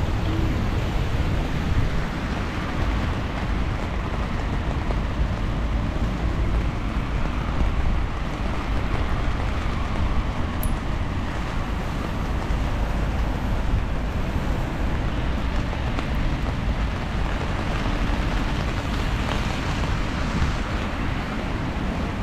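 Rainy city street ambience: a steady wash of noise with a strong low rumble throughout.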